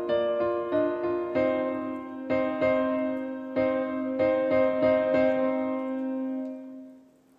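Background piano music, a gentle melody over a held low note, fading out near the end.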